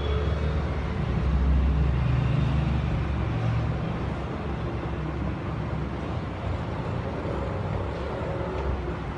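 Steady low rumble of a running motor, with a hum that shifts slightly in pitch.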